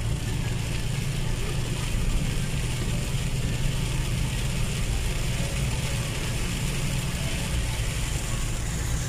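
Inside a car driving in heavy rain: a steady low rumble of engine and tyres on the wet road, with an even hiss of rain and road spray.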